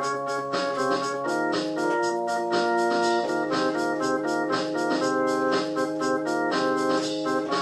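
Organ music: held notes and chords changing every second or so over a steady beat.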